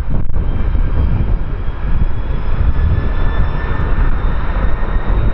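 Boeing 777 jet engines on a landing pass: a heavy, steady low rumble with a faint high whine above it.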